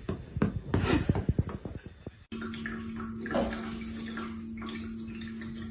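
Water splashing with irregular knocks, then, after a sudden cut, water running steadily into a tub with a constant low hum.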